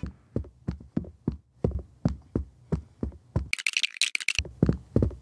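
A series of sharp knocks, about three a second, with about a second of hiss-like noise in the middle, stopping abruptly.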